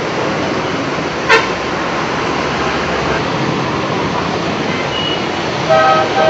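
Steady rush of muddy monsoon floodwater. A vehicle horn honks briefly near the end, and there is a short sharp sound about a second in.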